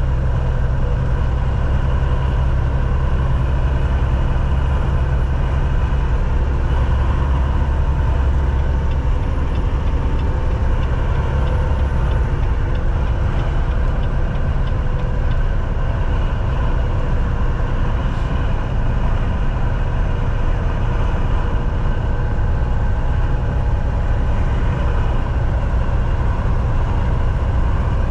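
Semi-truck driving at a steady speed: a low, even drone of its diesel engine mixed with road noise.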